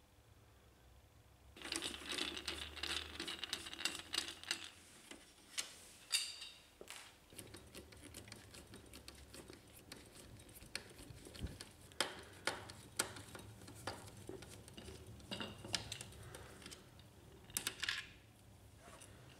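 A screwdriver turning out small screws from the fuser unit of a Brother HL-1110 laser printer: scraping and clicking of the bit in the screw heads, with scattered light clicks and clinks of metal and plastic being handled.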